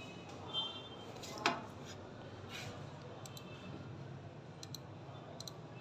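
Quiet room with a faint steady hum, a few light clicks and a short high chirp about half a second in.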